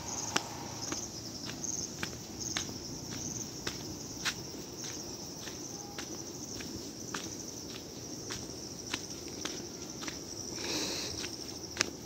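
Footsteps on a loose stony dirt track, about two steps a second, over a steady high-pitched drone of insects.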